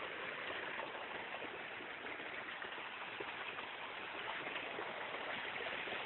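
Waterfall water rushing and splashing over boulders, a steady, even rush.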